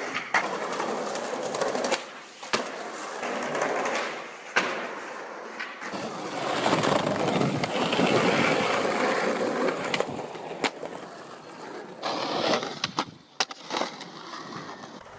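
Skateboard wheels rolling on pavement, the rolling loudest in the middle, with several sharp clacks of the board from pops and landings.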